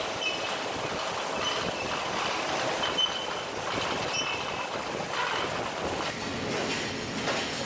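Steel coil slitting line running: a steady mechanical din from the rollers and rotary slitter knives cutting hot-rolled steel sheet into strips, with short high metallic squeals recurring about every second.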